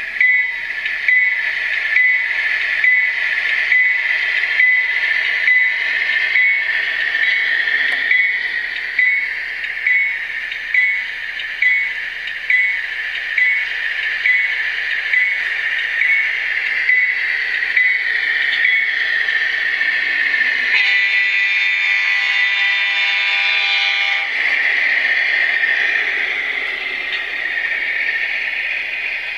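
HO scale GEVO diesel locomotive model's Digitrax sound decoder playing a locomotive bell, ringing steadily at about one and a half strokes a second, over the engine sound. About 21 s in, the bell gives way to a horn blast of about three seconds, after which the engine sound runs on.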